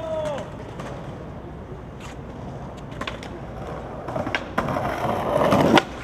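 Skateboard wheels rolling over plaza concrete, growing louder from about four seconds in, with a few light clicks, then a sharp crack of the tail popping against the ground just before the end as the skater launches a trick over a ledge.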